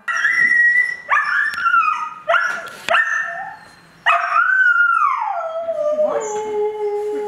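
Several Ragdoll cats meowing loudly over one another: about five long, drawn-out cries that bend up and down in pitch. A long cry about four seconds in slides down and then holds low, steady and plaintive until the end.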